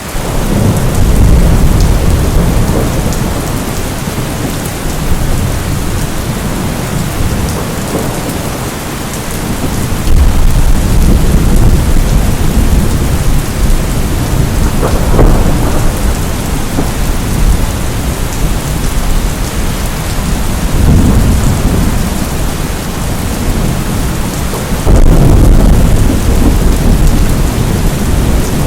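Steady downpour of rain hissing, with rumbles of thunder swelling and fading several times underneath.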